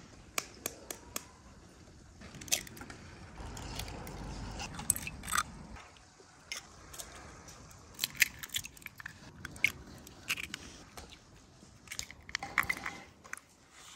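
Eggs being cracked one after another into a glass bowl: a run of sharp, crisp cracks of eggshell, some close together.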